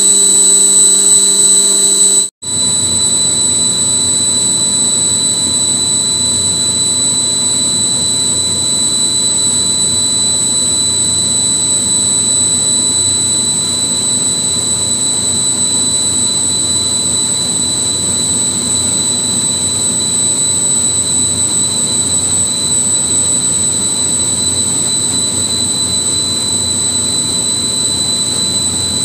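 Industrial screw air compressor running steadily, with a constant hum and a steady high-pitched whine. The sound cuts out for an instant about two seconds in. After that the compressor runs on unloaded, its line pressure slowly falling.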